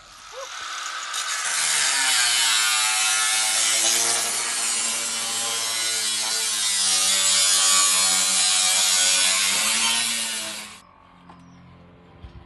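Angle grinder cutting through metal: a loud, steady hiss over a motor whine that shifts in pitch under load. It builds up over the first couple of seconds and stops abruptly near the end.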